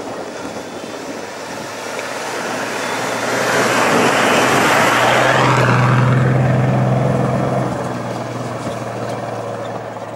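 Nissan Patrol SUV driving past on a gravel track, its tyres crunching over loose stones and its engine running. It grows louder to a peak about four to six seconds in as it passes, then recedes.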